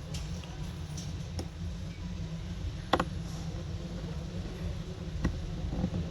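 Small tools clicking and tapping against iPhone 6 parts during reassembly: a handful of separate sharp clicks, the strongest about halfway through, over a steady low hum.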